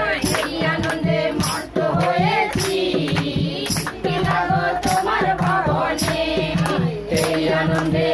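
Group of women singing a Bengali Christian devotional song (bhajan), with hand claps and percussion keeping a steady beat.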